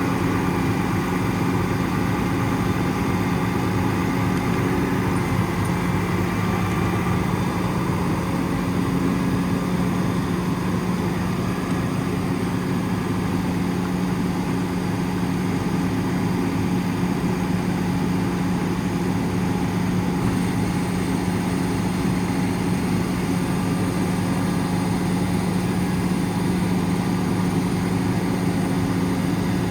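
Cummins ISL 8.9 inline-six diesel of a Freightliner M2 running steadily, a constant low engine note with no revving.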